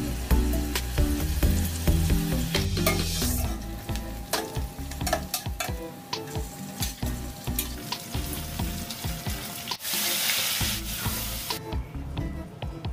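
Sliced onions and then beef pieces sizzling in hot oil in an aluminium pot, with many sharp clicks and scrapes of a spoon against the pot as they are stirred. A louder surge of sizzling comes about ten seconds in. Background music plays under the first few seconds.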